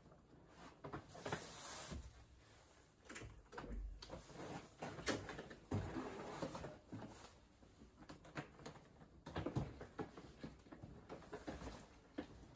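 Handling noise of a backpack and a wheeled suitcase: rustling and irregular light knocks and clicks. The hotel room door's handle and latch click as the door is opened.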